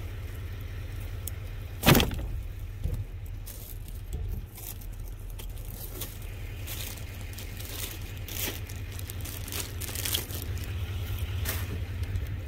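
Hands in work gloves rummaging through discarded groceries in a dumpster: plastic bags rustling and cardboard boxes shifting, with one sharp knock about two seconds in, over a steady low rumble.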